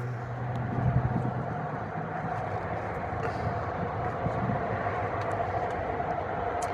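Steady mechanical hum with a low rumble and a constant mid-pitched tone running through it, with no clear start or stop.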